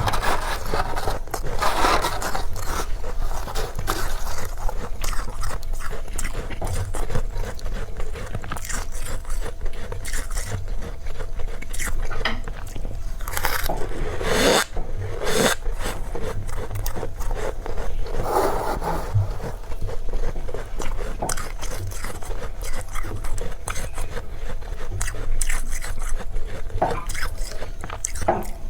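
Freezer frost being bitten and chewed close to the microphone: a run of crackly crunches, with scraping in between.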